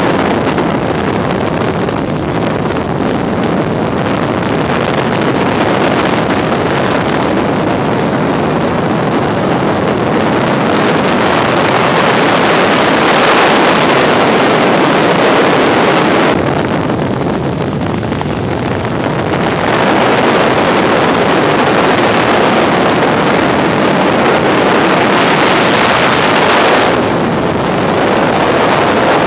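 Helicopter engine and rotor noise heard from inside the cabin: a loud, steady rushing roar. Its higher part dulls briefly about halfway through and again near the end.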